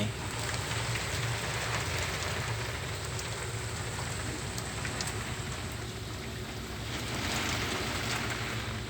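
Heavy rain pouring on the glass of a crane cab, a steady hiss of rain, with a low steady hum underneath.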